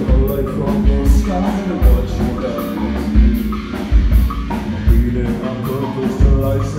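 Rock band playing live: electric guitars and a drum kit keeping a steady beat, with cymbal hits about twice a second, under a man singing into a microphone.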